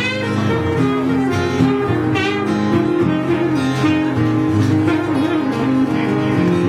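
Live acoustic guitar strumming chords under a saxophone melody with held, wavering notes.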